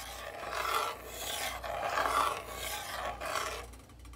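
A metal spoon stirring a thick crawfish étouffée in a metal pot, rubbing against the pot in repeated strokes, a little more than one a second, that stop shortly before the end.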